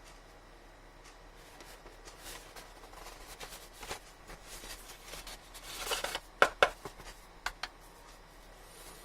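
Phone packaging being handled during an unboxing: light rustling and sliding of cardboard and plastic, a short swell of rustling about six seconds in, then four sharp clicks or taps in two close pairs.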